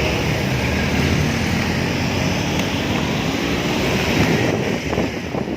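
Steady wind rushing over the microphone while riding a bicycle along a road, with the noise of passing motor traffic.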